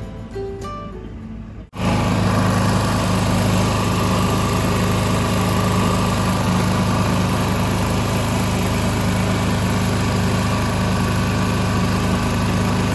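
Acoustic guitar music cuts off abruptly about two seconds in, giving way to a small engine running steadily at constant speed with an even hum.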